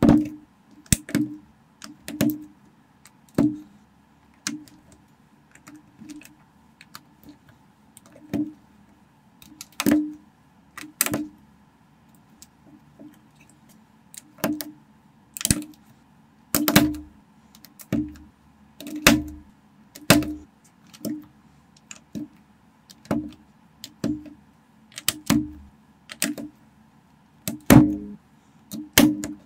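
Plastic building bricks being pressed onto a baseplate and onto each other, one at a time: a string of sharp clicks and snaps with a short low knock, irregularly spaced at roughly one a second.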